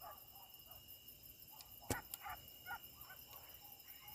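Faint, distant barking of a hunting dog giving tongue as it trails game: short barks, about two a second, over a steady high insect drone. A sharp click about two seconds in.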